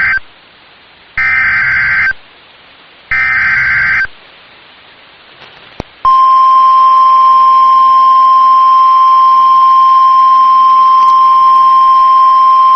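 NOAA Weather Radio Emergency Alert System signal: the end of one buzzy SAME data burst, then two more bursts of about a second each, then a click and, from about six seconds in, the long steady warning alarm tone that announces a new warning message, here a severe thunderstorm warning.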